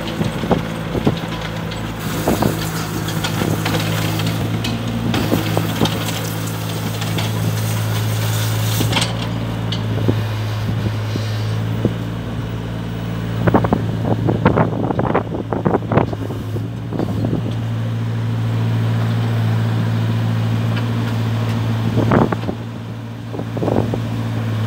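JCB 8016 CTS mini excavator's diesel engine running steadily as the machine tracks and moves its arm, with clanks and knocks from the tracks and arm a little past halfway and again near the end.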